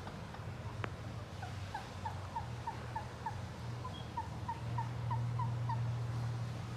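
Pet ringneck parrot giving a run of short, rising chirps, about three a second, over a steady low hum.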